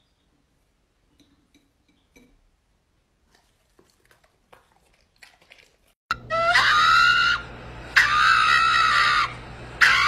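A pug giving three long, high-pitched, scream-like cries, starting about six seconds in. Before that there are only faint small clicks.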